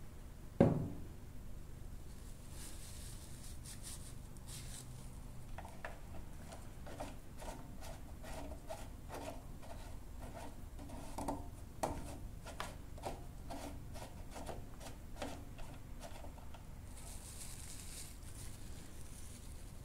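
A single thump about a second in, then a run of faint clicks and scrapes as the lawn mower's dipstick is pushed into and drawn out of its oil filler tube to check the oil level.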